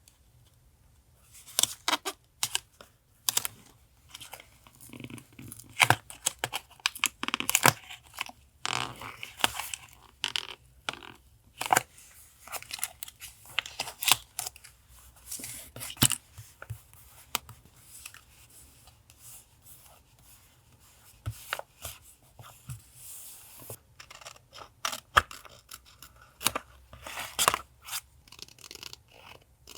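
Paper being torn and handled for a collage: irregular sharp rips and rustles, with a quieter stretch about two-thirds of the way through.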